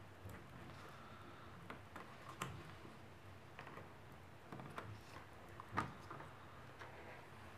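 Faint scattered clicks and light taps as fingers pull a small cable connector free from a laptop motherboard and handle the plastic and metal chassis, with one sharper click late on.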